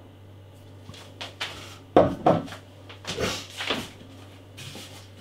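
Glass beer bottles and their cardboard box being handled during unpacking: a few light clicks, two sharp knocks about two seconds in, then scraping and shuffling.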